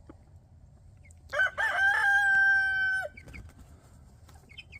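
A rooster crows once: a choppy start, then a long held note that drops off at the end. A few faint short chicken calls follow.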